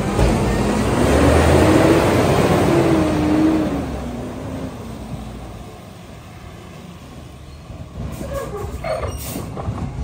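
Mack LEU garbage truck's natural-gas engine pulling away, its pitch rising and then falling as it accelerates, fading as the truck drives off. Near the end, a few short brake squeals and a hiss as it slows to a stop.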